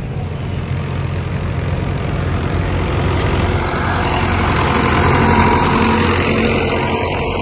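Tractor engine running steadily while working a field, turning sandy soil. It grows louder toward about five seconds in and eases off near the end, and a high thin whine comes in about four and a half seconds in.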